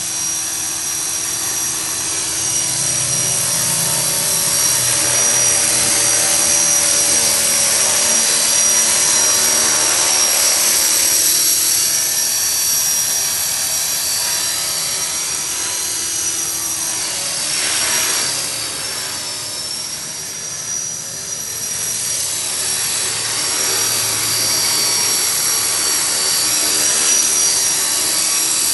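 EXI 450 electric RC helicopter in flight: a steady high motor and rotor whine, which sweeps in pitch and dips briefly about two-thirds of the way through.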